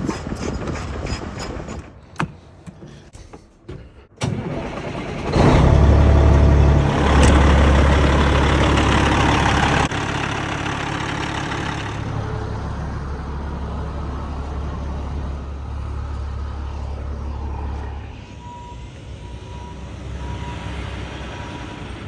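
Heavy diesel engine sounds in a string of abruptly cut clips. About four seconds in, an engine catches and runs loud and deep for several seconds, then settles to a steadier, quieter run.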